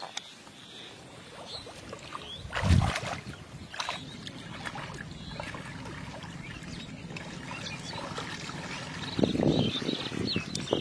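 Hands splashing and sloshing through shallow, muddy paddy-field water while groping for fish. There is a louder burst about three seconds in, and a run of choppy splashes near the end.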